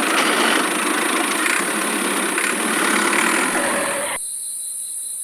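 A small engine or motor running with a dense, even mechanical noise that cuts off about four seconds in, leaving a faint steady high whine.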